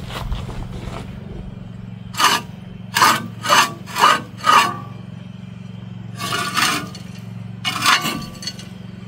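Steel lug nuts clinking and scraping against the wheel studs and brake rotor of a Ford Transit's front hub as they are put on by hand. There is a quick run of five short metallic scrapes about two seconds in and two more near the end, over a steady low hum.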